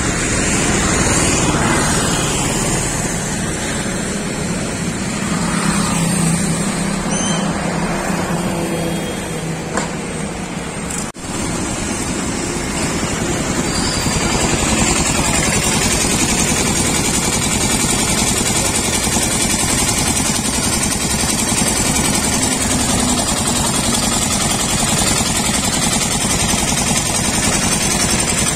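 Street traffic: a steady wash of engine and tyre noise from passing vehicles, with an engine hum swelling now and then as one goes by.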